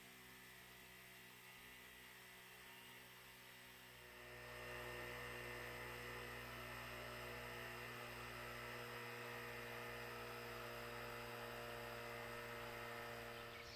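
Portable 12-volt tire inflator's small air compressor running steadily with a humming drone while pumping up a flat tire toward a 10 psi preset. It grows louder about four seconds in and shuts off near the end when the tire reaches the set pressure.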